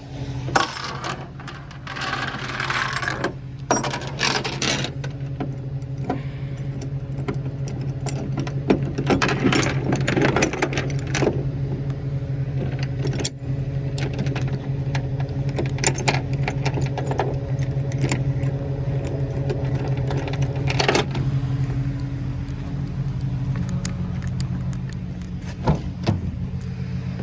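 Tow truck engine idling steadily, with repeated metal clinks and clanks of chain and rigging being handled as a snatch block is set up for winching.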